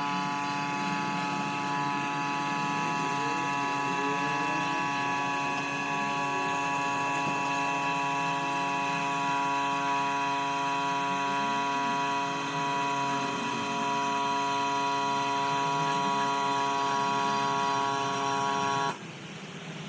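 A motor-driven machine running at a steady pitch, giving a strong hum with several even tones, then cutting off suddenly near the end.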